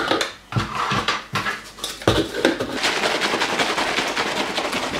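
Plastic shaker bottle being closed with a few clicks and knocks, then shaken rapidly so the milk and protein powder slosh and rattle inside in a fast, steady rhythm.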